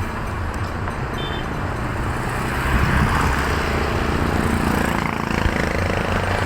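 Motor vehicle engines and road noise in traffic, the engine sound swelling louder about two and a half seconds in. No telolet horn melody is heard.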